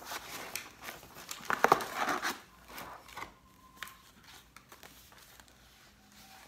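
Paper sheets being handled and shuffled, crinkling for the first two seconds or so, loudest near the end of that stretch, then only faint rustles and a few light clicks.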